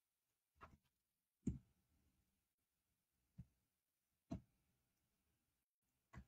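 A few short, faint clicks in near silence, the loudest about a second and a half in.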